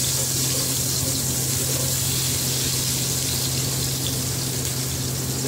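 Sliced onions sizzling steadily in hot oil in a steel pot while being stirred with a wooden spoon, over a steady low hum.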